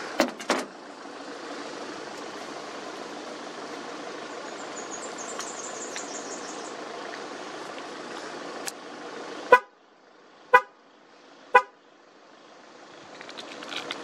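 A steady hiss with a faint high twittering about five seconds in, then three short, loud, pitched beeps one second apart, each cutting off sharply. The hiss drops away after the first beep.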